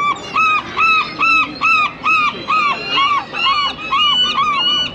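Gull calling over and over in a loud run of about a dozen sharp calls, roughly two and a half a second.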